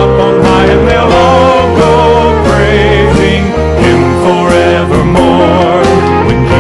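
A Christian devotional song: a voice sings with vibrato over an instrumental backing.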